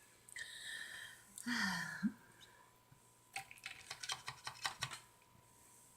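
Chocolate milk sipped through a straw from a glass with ice: a soft hissing sip, a short falling hum, then a run of quick sharp clicks and crackles, about six to eight a second, for over a second.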